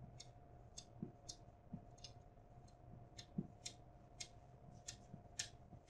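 Marker writing on a whiteboard: a string of faint, short, irregular squeaks and taps as the pen strokes form the letters.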